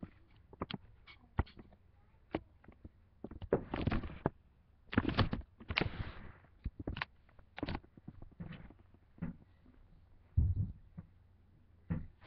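A cat scuffling with a catnip-filled toy close to the microphone: irregular knocks, scratches and rustles, with a few louder bursts of scuffling.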